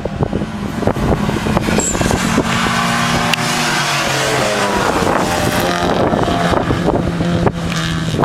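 Car at racing speed passing close by on a race circuit: its engine note swells, bends up and then down as it goes past, with a rush of tyre and wind noise peaking in the middle. Wind buffets the microphone in the first second.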